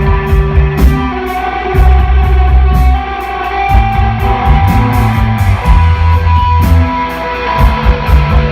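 Live instrumental rock band playing: sustained electric guitar notes over heavy bass and drums, with cymbals struck about two to three times a second.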